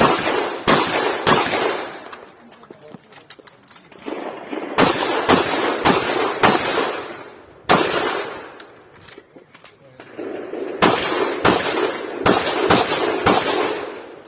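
Competition shotgun firing about a dozen shots in three quick strings of three, four and five, each shot ringing out briefly, with pauses of a few seconds between the strings.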